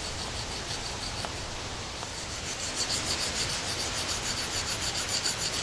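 Steel knife edge being drawn lightly across the coarse diamond face of a Fallkniven DC-4 pocket whetstone: a rapid, even run of short scraping strokes, about four a second, growing a little louder in the second half.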